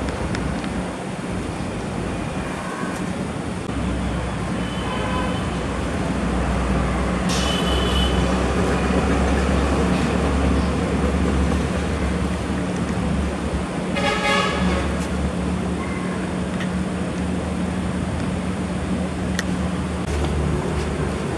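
Steady low rumble of road traffic with an engine hum. A few brief high-pitched sounds come through it about 5, 8 and 14 seconds in.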